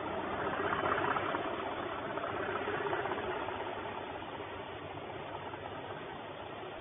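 Diesel engines of two Class 37 locomotives, English Electric V12s, running as they haul a train away. The sound peaks about a second in and again near three seconds, then fades as the locomotives draw off.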